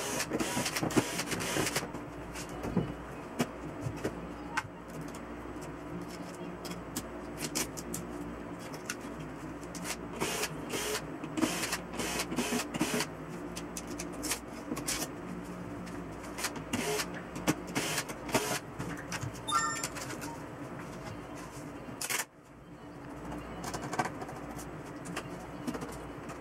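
Scattered clicks, knocks and clatter of plastic and metal TV parts being handled as an LCD television is taken apart: back cover, screws and circuit boards coming off the metal chassis. A steady low hum runs underneath.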